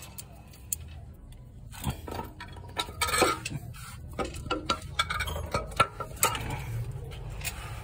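Irregular clinks and knocks of small metal parts being handled and set down, mixed with rubbing of the phone being moved about.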